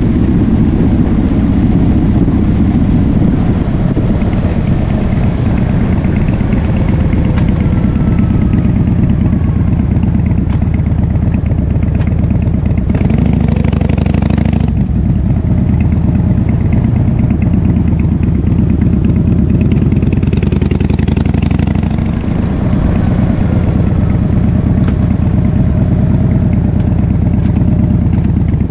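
Harley-Davidson Fat Bob's V-twin engine through a KessTech exhaust, running under way with the pitch rising and falling as the throttle and gears change. The engine eases off briefly about two-thirds of the way through.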